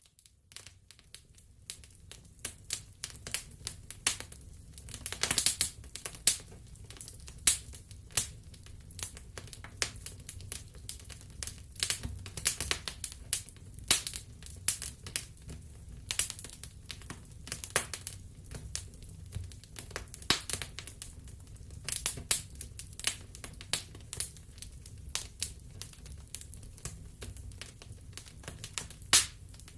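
Wood fire in a fireplace crackling: a steady stream of irregular snaps and pops over a low rumble of the flames.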